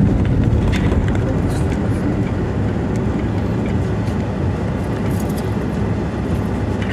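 Car driving slowly over a rough, rutted dirt road: a steady low rumble of engine and tyres, with a few light knocks and rattles from the bumpy surface.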